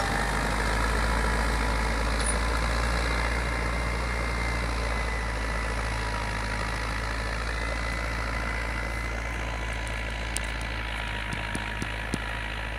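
IMT 587 tractor's diesel engine running steadily under load while it pulls a two-furrow plough, slowly fading as the tractor moves away.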